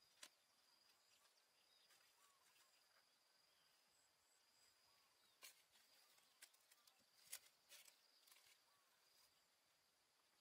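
Near silence: faint outdoor ambience with a steady thin high tone and a few soft clicks and taps.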